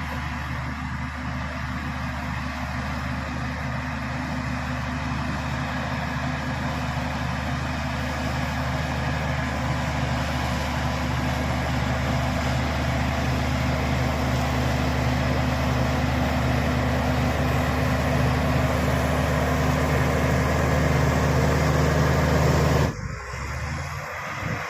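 Heavy diesel engine running at a steady pitch, slowly growing louder for about twenty seconds, then dropping off abruptly near the end.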